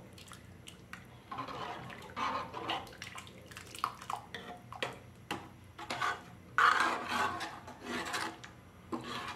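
Metal ladle stirring thin sambar in a metal pot: irregular scrapes and light clinks against the pot, with the liquid sloshing and pouring back off the ladle.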